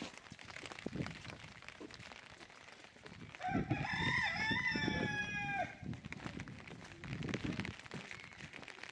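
A rooster crows once, a single call of about two seconds that steps up in pitch, over scattered low thumps.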